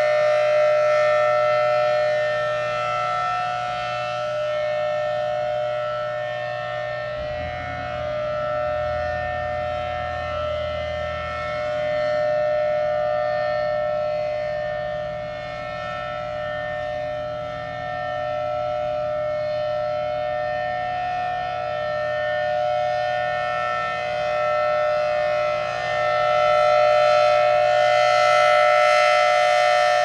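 Outdoor civil defense warning siren sounding a steady, unbroken tone during a scheduled test, swelling and fading in loudness every few seconds.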